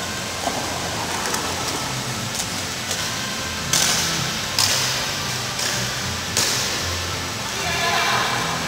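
Roller-skate wheels rolling on a concrete floor as a continuous rumbling hiss, with four sharp knocks about a second apart midway through. Faint music plays underneath.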